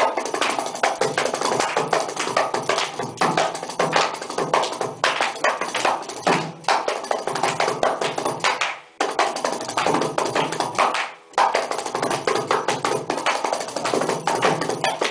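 Kanjira, the South Indian frame drum with a single pair of jingles, played solo in a fast, dense run of strokes in mishra nade (a sevenfold subdivision of the beat). The stroke run breaks off briefly twice a little past the middle, then carries on.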